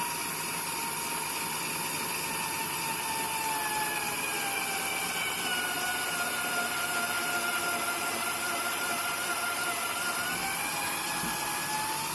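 Electric drill running continuously while drilling into wood. Its motor whine drops in pitch about four seconds in as the bit bites and loads the motor, then rises again near the end.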